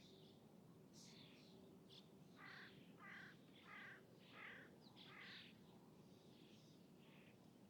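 Birds calling over faint ambience: a few high chirps, then a run of five harsh calls about half a second apart, then softer chirps near the end. Under them runs a steady faint low hum.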